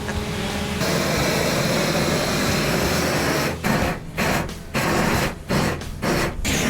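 Gasoline chainsaw cutting into wood during chainsaw carving. It runs steadily at first, then in the second half is revved in short bursts with quick drops between them.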